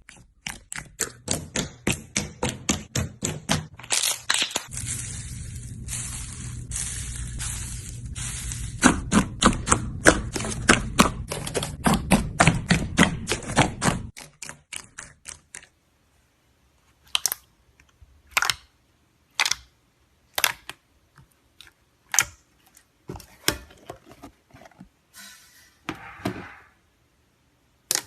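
Slime being squeezed and pressed, popping and clicking in a fast run of sharp snaps for about fourteen seconds, then single pops roughly once a second.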